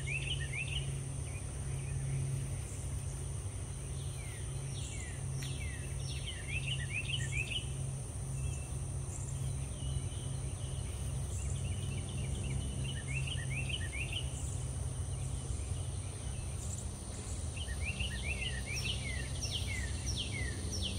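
Outdoor ambience of songbirds chirping in clusters of quick, falling notes, over a steady high insect drone and a low steady hum.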